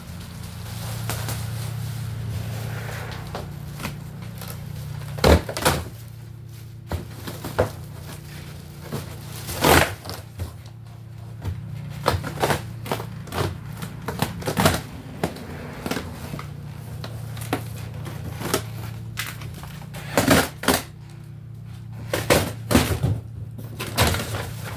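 Irregular knocks, clunks and rattles from a chest freezer being unpacked and handled, with a few louder thumps, over a steady low hum.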